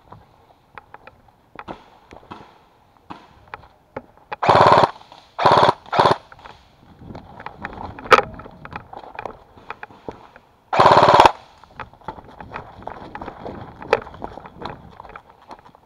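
Airsoft gun firing short full-auto bursts: three close together about four to six seconds in, and one more about eleven seconds in. Between the bursts are rustling and snapping footsteps in leaf litter and twigs.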